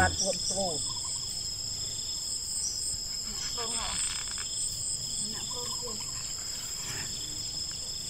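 Steady high-pitched insect chorus: two continuous shrill tones that do not change. Faint voices talk briefly now and then.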